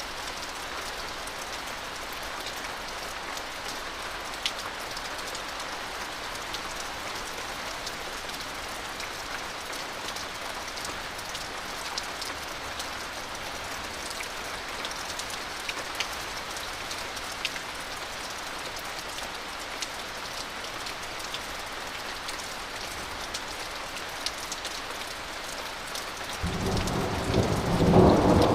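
Steady rain falling, with scattered sharp ticks of individual drops hitting nearby surfaces. About 26 seconds in, thunder from a nearby lightning strike breaks in suddenly: a loud, deep rumble that builds and becomes the loudest sound near the end.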